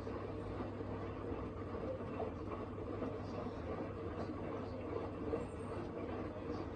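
Hoover H-Wash 700 washing machine running the main wash of a 90° drum-clean cycle: a steady hum and rumble from the motor and turning drum.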